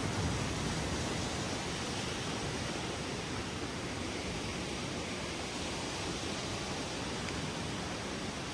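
A steady, even rushing noise with no distinct events, slightly louder with a low rumble about the first second.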